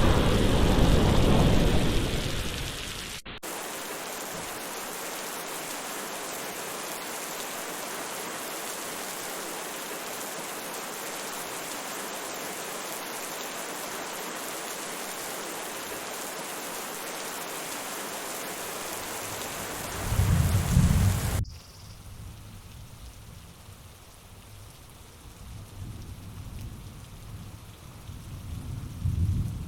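Heavy rainforest rain falling steadily, with rolls of thunder. A rumble fades over the first few seconds, a short loud one comes about twenty seconds in, and another builds near the end. The rain cuts abruptly to a softer hiss just after the second rumble.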